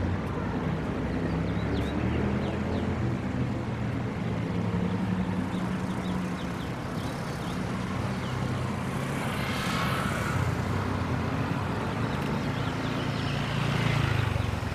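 City street traffic: vehicle engines running steadily, with a car passing about ten seconds in and another swell of traffic near the end.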